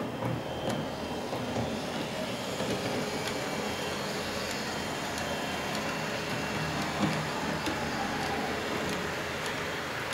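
H0-scale model train, a red SBB Re 4/4 II model locomotive hauling a string of box wagons, running along the layout's track: a steady rumble of metal wheels on rails with scattered light clicks.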